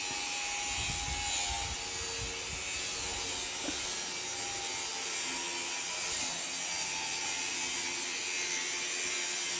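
Steady rasping noise of a DIY power tool running continuously, with a faint whine that shifts in pitch.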